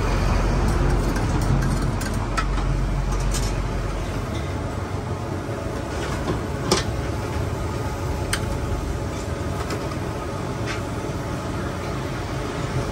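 Steady low roar of a gas wok burner, with octopus frying in the wok. A few sharp metal clicks sound over it.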